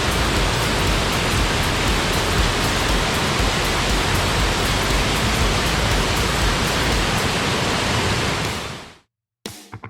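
Waterfall roaring, a loud steady rush of falling water with a heavy low rumble; it fades out quickly near the end.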